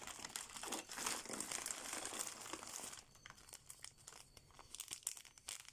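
Plastic packaging crinkling as it is handled, dense for about three seconds, then thinning to a few scattered rustles and clicks.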